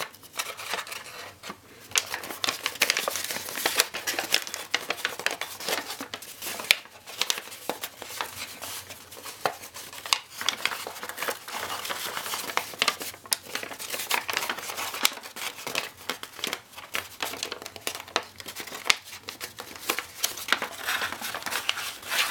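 Sheet of paper crinkling and rustling as an origami model is folded and creased by hand, with many small irregular crackles as flaps are pressed flat.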